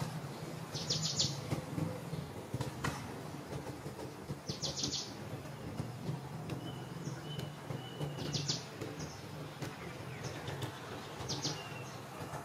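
A bird gives a short burst of rapid high notes, four times at intervals of roughly three to four seconds, with fainter thin whistles in between, over a steady low hum.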